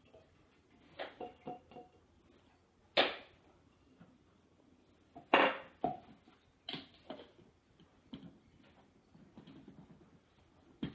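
Kitchen handling noise: a glass jar and a plastic single-serve blender cup knocked and set down on a granite countertop, a scatter of sharp clinks and thuds, the loudest about three and five and a half seconds in. Near the end, softer plastic clicks as the blade base is fitted onto the cup.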